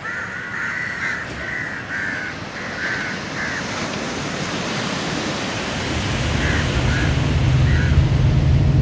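Crows cawing repeatedly over the steady wash of surf, the cawing fading about three and a half seconds in and returning briefly near the end, while a low rumble builds over the last few seconds.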